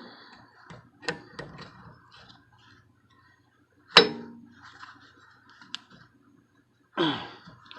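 Metal parts of a bench grinder being handled while a stone is changed: scattered small clicks, a sharp metallic clank with a brief ring about four seconds in, and another knock near the end.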